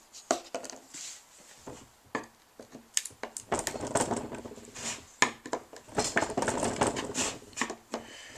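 A metal tin of car paint being handled and then shaken hard to mix the settled paint. A few separate knocks and clicks come first, then from about halfway through a fast, continuous metallic clatter.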